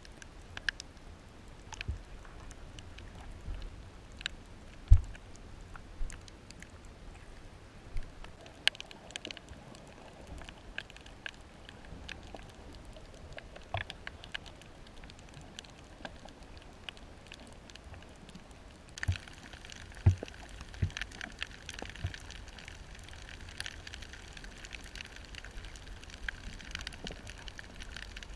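Underwater ambience heard below the surface of a reef: a steady muffled hiss with scattered sharp clicks and a few low thumps, turning to a denser crackling about two-thirds of the way through.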